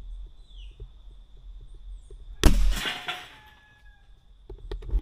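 Air rifle shot about two and a half seconds in, a sharp crack that fades over about a second; the shot knocks down the target. A few small clicks follow near the end.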